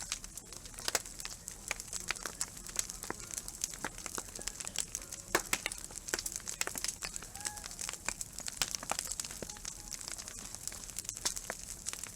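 Wood bonfire burning, with dense, irregular crackling and sharp pops.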